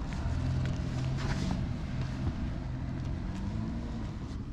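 A motor vehicle's engine running close by: a low steady hum whose pitch rises near the end.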